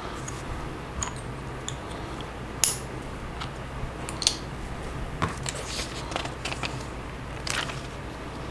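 Plastic LEGO pieces clicking and clattering as they are handled and snapped together: a scatter of short, sharp clicks, the loudest about two and a half seconds in and again around four seconds in.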